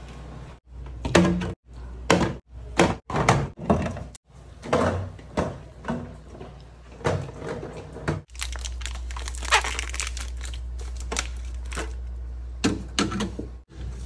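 Plastic drink bottles and cans being set down on refrigerator door bins and shelves: clusters of short knocks and clunks, broken by sudden cuts.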